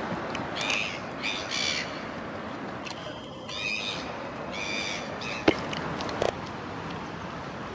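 Black-headed gulls giving short, harsh calls, about five in the first five seconds, over steady background noise; a single sharp click about five and a half seconds in.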